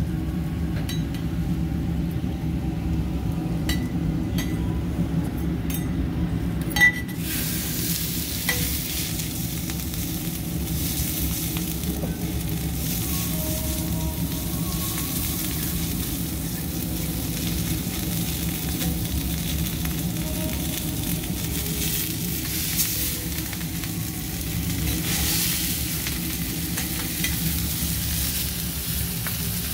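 Kobe beef sizzling on a hot teppanyaki steel griddle. The sizzle sets in about seven seconds in, just after a sharp clank, and holds steady after that. Before it come a few light clinks of the knife and fork on the steel, over a steady low hum.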